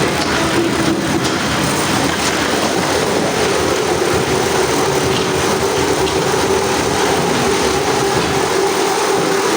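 A machine running steadily: loud, even mechanical noise with a constant hum that becomes clearer about three seconds in.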